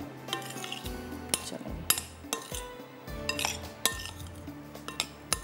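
Kitchen utensils clinking against a bowl in a handful of sharp, irregular knocks as paneer cubes are tossed in a cornflour-and-water coating, over soft background music.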